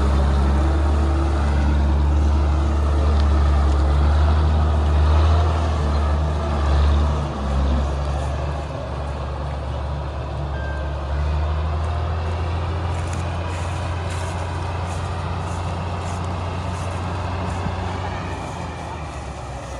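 Combine harvester's diesel engine running steadily in the field, its level dipping briefly about seven to nine seconds in and picking up again around eleven seconds in.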